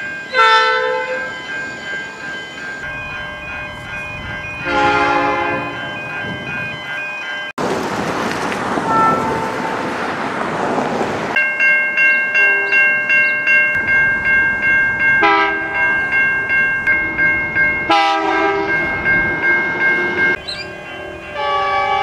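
Diesel freight locomotive horns, including a Pacific National 81 class, sounding about five short multi-note blasts in separate shots. Between them come a few seconds of train noise passing, then a level-crossing warning bell ringing rhythmically, about two rings a second.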